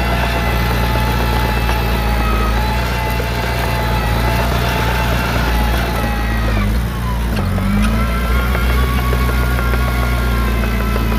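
Heavy earthmoving machine's diesel engine running steadily. About six and a half seconds in, the engine note drops and then climbs back up a second later.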